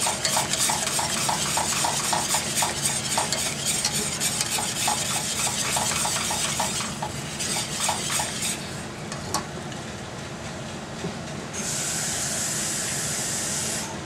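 Wire whisk stirring a thickening flour gravy in a stainless steel skillet, its wires ticking rapidly against the pan for about seven seconds, then slowing and stopping. A steady hiss runs underneath, with a louder even hiss for about two seconds near the end.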